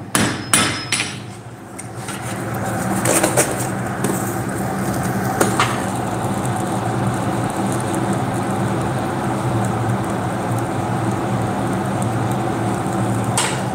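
A few clanging hammer blows on the anvil in the first second. From about two seconds in, the coal forge's electric blower runs with a steady hum while the workpiece heats in the fire.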